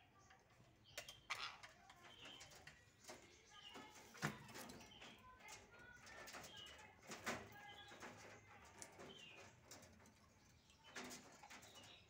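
Faint, scattered short chirps and calls from caged green parakeets, with a few sharp knocks and wing flutters among them, the loudest knocks about four and seven seconds in.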